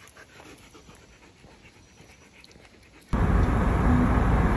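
A dog panting faintly on a walk. About three seconds in, it cuts off abruptly to loud, steady road and wind noise from a moving vehicle.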